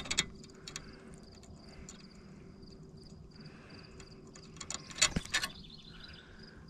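Sharp clicks and small mechanical rattles from handling a spinning fishing reel, loudest in a short burst about five seconds in. Behind them an insect chirps in an even, high, pulsing rhythm.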